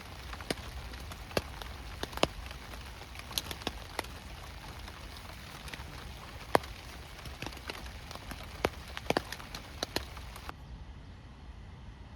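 Rain falling in a steady hiss, with scattered heavier drops ticking sharply at irregular moments. It cuts off abruptly about ten seconds in.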